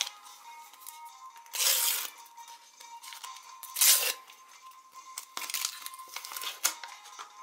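Paper sleeve being torn open and peeled off a round cardboard collectible cap: two loud tearing rips about two seconds apart, followed by smaller crinkles as the paper is pulled away.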